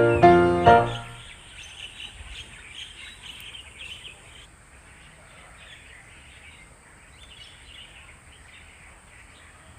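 Background piano music ending about a second in, followed by faint outdoor ambience with birds chirping.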